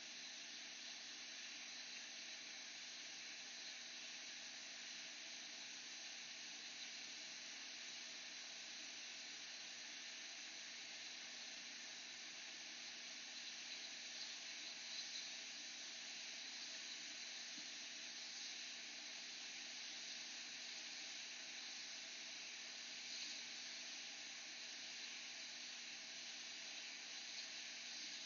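Hot air rework station blowing steadily onto a MacBook Air's SMC chip: a faint, even hiss of air while the factory solder under the chip is heated to free it from the logic board.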